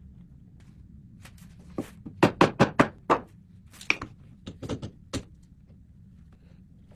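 A run of sharp knocks on the wooden cricket bat under repair, about ten in three seconds, the loudest four coming fast in the middle.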